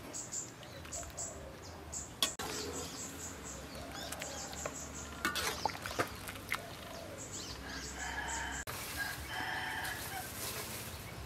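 Chickens clucking and a rooster crowing in the background, with a few sharp knocks of a metal skimmer against a wok.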